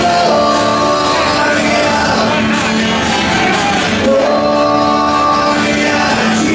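Live solo performance: a man singing into a microphone with his own acoustic guitar, holding long notes twice, amplified through the bar's sound system.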